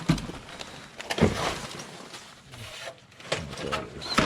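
Several separate clunks and knocks with scraping and rustling between them, as objects and debris are handled and moved about.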